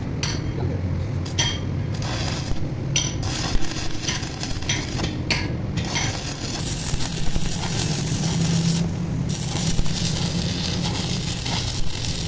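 Metal clinking and scraping, as of tools and steel parts knocking together, over a steady low hum. Separate sharp clinks come in the first half, then an even rushing noise sets in about halfway through.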